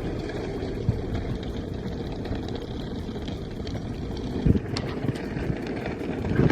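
A car on the move: steady engine and road rumble, with a couple of brief knocks.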